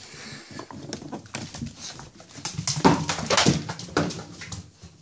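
An American Staffordshire terrier puppy plays with a big purple ball on a tiled floor: irregular knocks and scuffs of the ball and her claws, mixed with small dog noises. The loudest knocks come about three seconds in.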